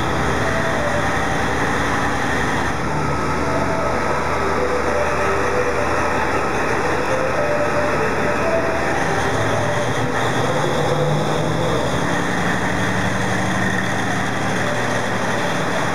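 KiHa 40 diesel railcar's DMF15HSA diesel engine running steadily, a continuous low drone with engine tones that shift in pitch now and then.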